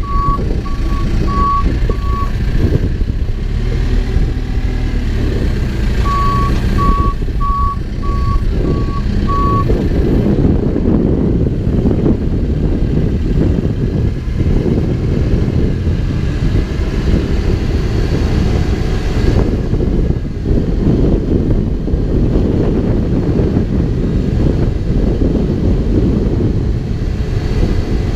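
Backhoe's diesel engine running under load, with its reverse alarm beeping at a steady pace in two spells: in the first two seconds and again from about six to nine and a half seconds in.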